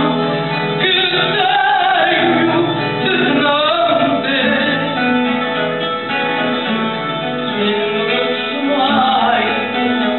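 Fado performed live: a woman singing over a Portuguese guitar and a classical guitar. Her phrases are strongest in the first few seconds and again near the end, with the plucked guitars carrying the middle.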